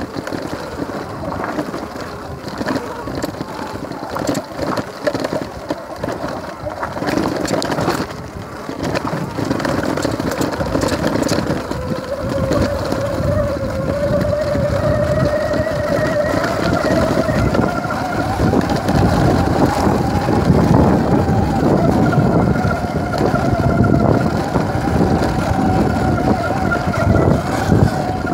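Mountain bike rolling fast down a gravel dirt road: tyres rumbling over the loose surface and wind buffeting the handlebar-mounted microphone. From about twelve seconds in, a steady whine joins and rises slightly in pitch as the bike gathers speed, and the whole sound grows louder.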